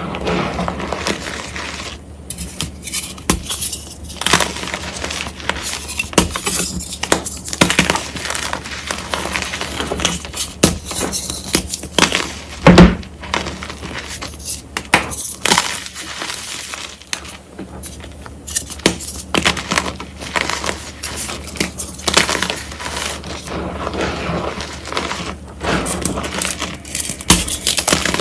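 Reformed gym chalk hearts and chunks crushed by hand over a heap of chalk powder: a long run of irregular crunches and snaps with crumbling between them, the loudest crack about 13 seconds in.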